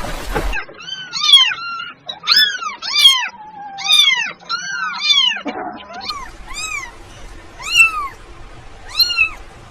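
Kittens meowing: a quick run of high-pitched meows, each rising then falling in pitch, then more spaced meows about once a second.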